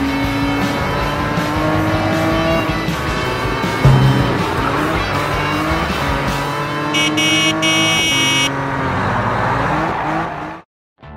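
Cartoon car-engine sound effects revving, rising and falling in pitch, over background music. A thump comes about four seconds in, a short high steady tone about seven seconds in, and the sound cuts to silence just before the end.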